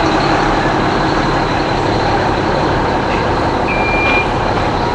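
Motor vehicle engines running as parade vehicles roll slowly past, a dense steady rumble and hiss, with one short high-pitched beep about four seconds in.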